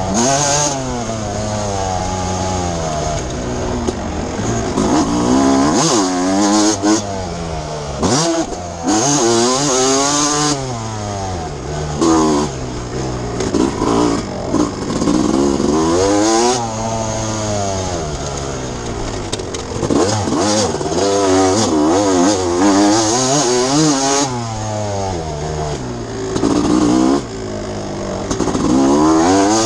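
Suzuki RM 250 single-cylinder two-stroke motocross engine revving hard and dropping off again and again, its pitch climbing through each gear and falling when the throttle is shut, with several sudden cut-offs.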